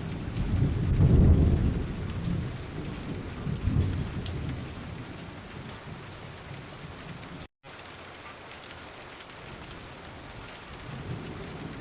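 Heavy rain falling on a car's windows and roof, with thunder rumbling loudly in the first few seconds and then dying away. The sound drops out completely for an instant a little past halfway, then the steady rain carries on.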